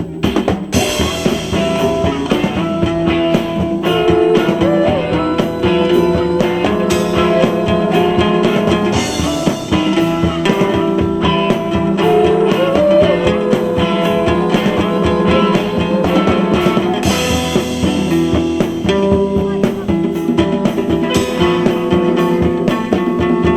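Rock band playing: a guitar line of held notes with a few bent notes over a steady drum kit.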